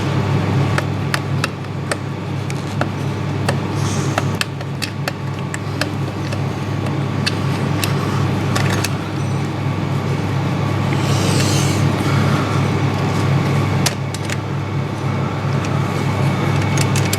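Hand tools clicking and tapping on metal as the cam caps are undone on a Honda CRF250 cylinder head: scattered sharp clicks over a steady low hum.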